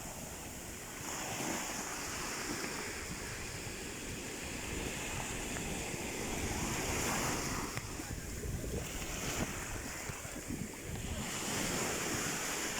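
Sea waves washing onto the shore, the surf swelling and ebbing in slow surges, with wind buffeting the microphone.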